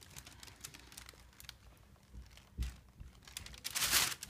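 Paper crinkling and rustling on a paper-covered exam table as the baby is held and shifted on it. There are faint scattered ticks, a soft thump partway through, and a louder crinkle near the end.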